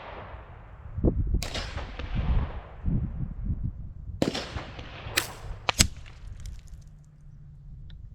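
Four gunshots from a Mark II, the first two about a second and a half and four seconds in with long fading echoes, then two sharper cracks close together around five and six seconds. Gusty wind rumbles on the microphone throughout.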